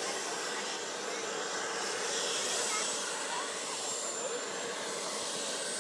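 Steady rushing hiss of model turbine jet engines running, with a thin high whine over it.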